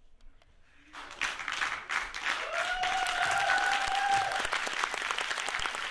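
A group of people applauding, starting suddenly about a second in and going on steadily. A single voice holds one long call over the clapping midway through.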